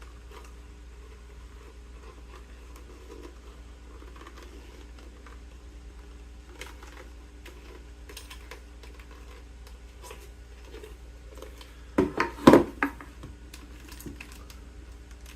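Hands working an M1 helmet's liner and chin strap hardware: faint scratching, rustling and small clicks, then a quick run of about four loud sharp knocks near the end.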